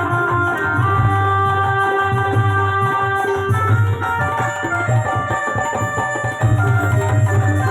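Live instrumental band music: drums beating a steady rhythm under held melody notes. The heavy low beat drops out about four seconds in and comes back near the end.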